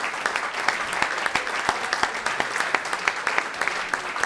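Audience applauding: a dense run of irregular hand claps.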